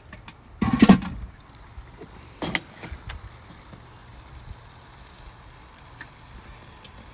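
Metal lid of a charcoal kettle grill being lifted off: a loud clank about a second in, then a smaller knock a second and a half later.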